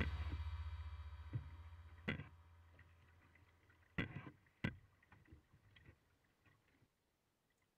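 A low music note dies away over about the first two seconds, then a few faint, short splashes and knocks of a kayak being paddled: one about two seconds in and a small cluster between four and five seconds in.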